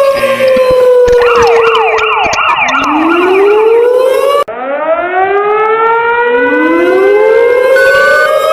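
Layered siren sounds of a mock emergency alert alarm: a slowly falling tone, then a fast warbling yelp about a second in, then several sirens winding up in rising sweeps that start one after another and overlap. Short repeated beeps join near the end.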